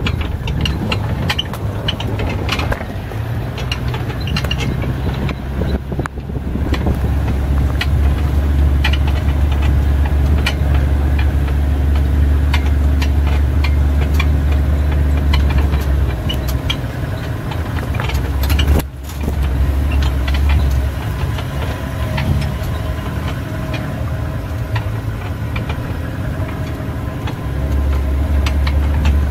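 Open safari game-drive vehicle driving along a rough dirt track: a steady low engine drone with frequent small knocks and rattles throughout.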